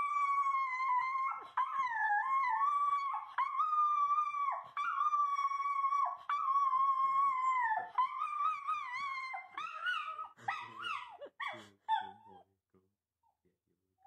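Small dog howling: a string of long, wavering howls on one high pitch, each lasting about a second and a half, breaking into shorter, choppier yelps and whines near the end before stopping.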